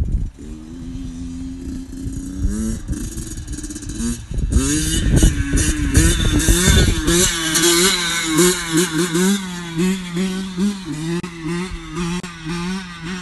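Motorcycle engine running steadily at first, then louder from about four seconds in, its revs rising and falling in quick repeated pulses.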